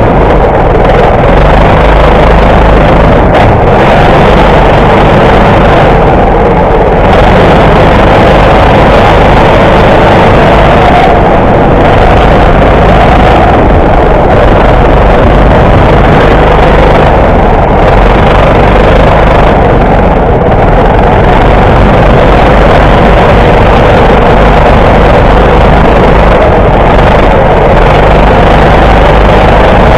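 Go-kart engine running flat out around a lap, loud and steady, its pitch wavering slightly as the kart takes the corners.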